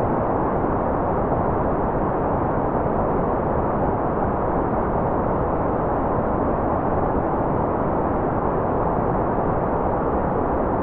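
Steady, unbroken white noise track with its highs cut, so it sounds like a dull, muffled hiss with the weight low down.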